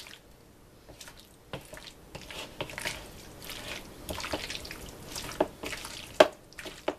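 A spoon stirring and folding mayonnaise-dressed potato salad in a mixing bowl: irregular wet squelching and scraping, with a few sharper clicks of the spoon against the bowl in the last couple of seconds.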